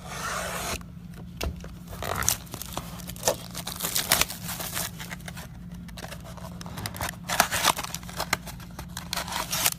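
Plastic wrapping on a sealed box of trading cards being torn open and crinkled, a dense rustle at first and then irregular sharp crackles. A steady low hum runs underneath.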